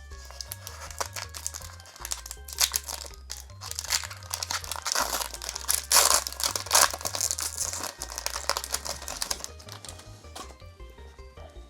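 Foil booster-pack wrapper of a Pokémon trading card pack being torn open and crinkled by hand, busiest in the middle and tapering off near the end, over background music with a steady low bass line.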